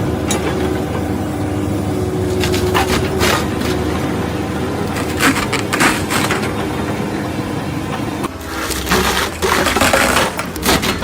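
Stump grinder's engine running steadily while its cutting wheel chews into a stump and roots, with about three loud bursts of crunching as the teeth bite into the wood.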